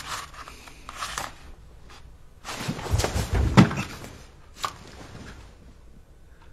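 Rustling of bedding and paper as someone shifts about on a bed, loudest in the middle, with a few light knocks and one sharp tap about two-thirds of the way through.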